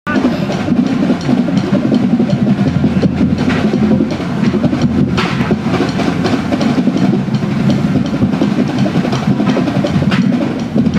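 A drum corps playing: drum strokes over a steady low rumble, loud throughout.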